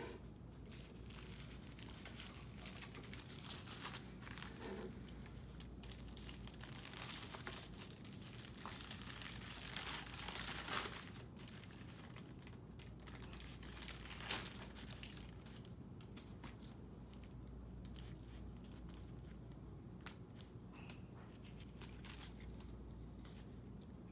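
Paper wrapper of a sterile glove packet crinkling and rustling as it is opened, unfolded and handled, with a louder stretch of rustling about ten seconds in and a single sharp tick a few seconds later.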